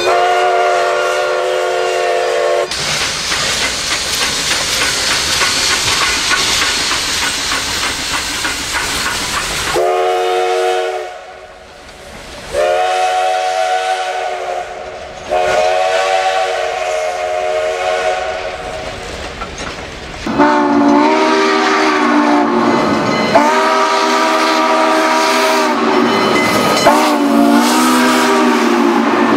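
Recorded real train sound: a steam locomotive's chime whistle blows a blast, then the passing train's hiss and rumble fill several seconds, followed by a string of whistle blasts. The blasts in the last third are lower-pitched and bend slightly in pitch.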